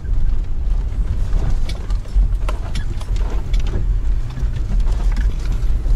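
Car cabin noise while driving over rough lake ice: a steady low rumble from engine and tyres, with scattered knocks and rattles as the car jolts over the ice hummocks.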